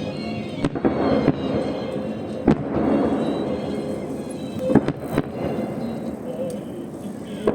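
Fireworks salute shells bursting: several sharp bangs at irregular intervals over a steady background of music and crowd.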